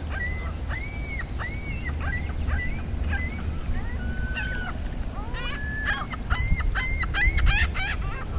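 Gulls calling: a series of short arched cries, spaced out at first, then a quicker run of calls near the end, over a low steady rumble.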